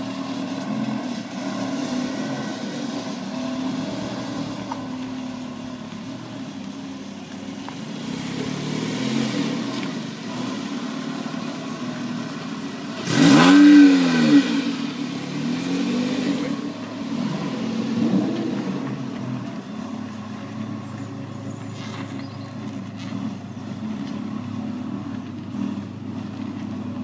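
Supercar engines idling and moving off at low speed, with the flat-six of a Porsche 911 Carrera S revving sharply once about halfway through, rising and falling in pitch, the loudest moment. Near the end a lower, steadier engine note takes over.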